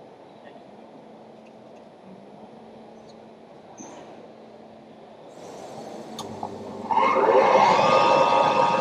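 A robot's suction-gripper vacuum blower switching on: a steady hum, then a loud rushing whine that climbs and settles about seven seconds in.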